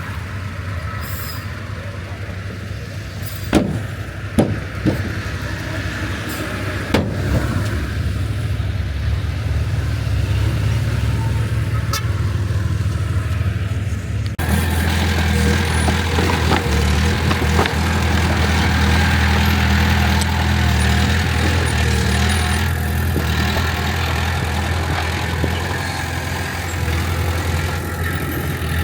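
Heavy diesel earthmoving machinery running steadily, with a few sharp metallic clanks in the first several seconds. About halfway the engine sound changes abruptly and grows louder.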